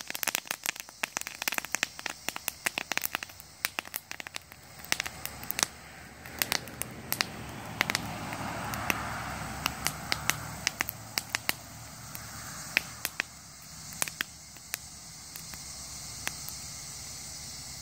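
Freshly cut green plant branches burning in a campfire, popping and crackling sharply at irregular intervals, like firecrackers. The pops come thickest in the first few seconds and keep going throughout over a soft hiss of the fire.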